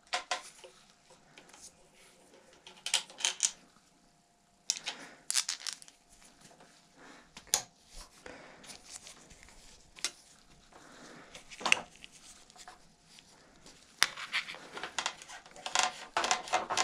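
Light metallic clicks and clinks of an Allen key and handlebar-stem parts being handled while the handlebars and stem are taken off a carbon road bike: scattered short knocks with pauses, growing busier near the end.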